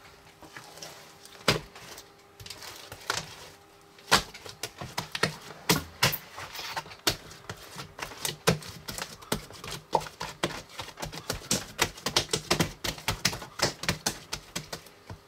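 Foam-ball slime being squished and stretched by hand, giving off many irregular sharp pops and clicks that come thicker in the second half.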